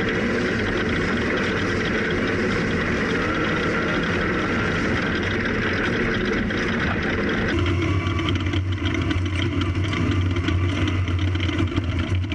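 Off-road buggy engine running while the buggy drives on dirt, a steady drone. About seven and a half seconds in the sound changes abruptly to a lower, steadier engine hum with an uneven flutter.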